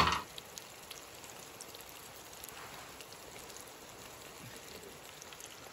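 Beef browning in oil in a billy can over a wood-burning Firebox stove: a faint, steady sizzle with scattered small crackles.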